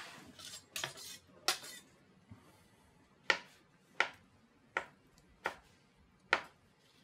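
A few knocks and clinks as a dish is set aside, then a chef's knife slicing through a ball of mozzarella. From about three seconds in, the blade taps the cutting board with sharp knocks roughly every three-quarters of a second.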